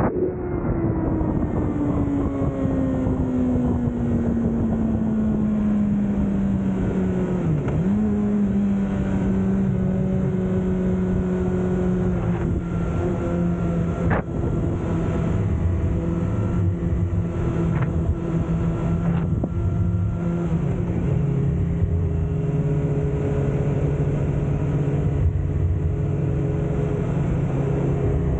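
Motorcycle engine heard while riding. Its note falls steadily over the first several seconds, dips and recovers once about seven and a half seconds in, then holds a steady cruising note over a low rumble. There is one sharp click about fourteen seconds in.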